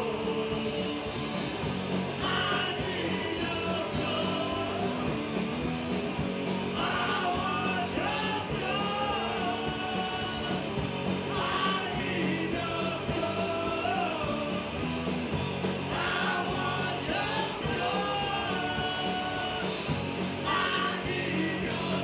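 Live punk rock band playing: bass guitar, drums and guitar under sung and shouted vocals, with a sung phrase of held notes coming round every four to five seconds.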